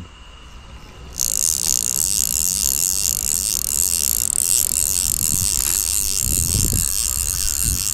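Fishing reel's drag buzzing with rapid clicks as a hooked fish pulls line off. It starts suddenly about a second in and runs on steadily.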